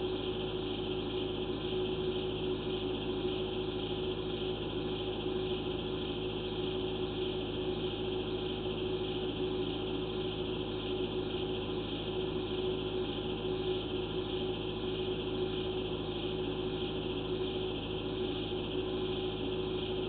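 Steady electronic hum and hiss with several held tones, unchanging throughout, typical of the background noise of a sewer inspection camera's recording system.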